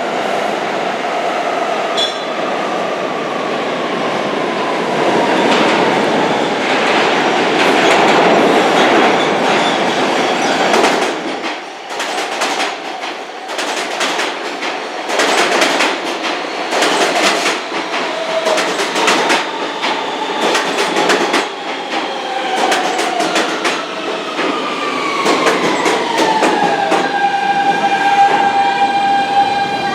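New York City subway train in the station: a steady rumble, then the wheels clattering over rail joints from about twelve seconds in. Near the end an electric motor whine glides down in pitch and levels off as the train slows.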